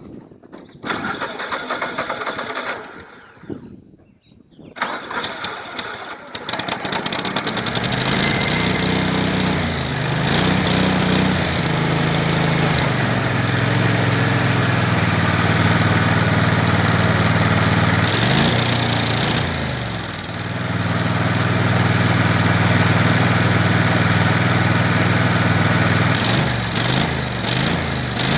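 Landmaster LM650 utility vehicle engine being cranked hard to start; it catches about seven seconds in and runs, revved up and down several times. It is a hard-starting engine that has been dying out.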